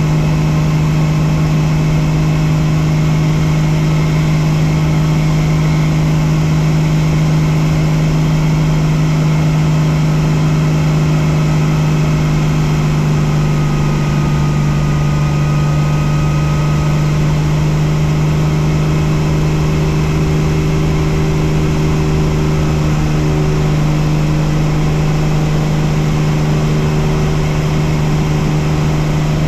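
Bell 47 helicopter's piston engine and main rotor running steadily on the ground, a loud continuous drone with a strong low hum.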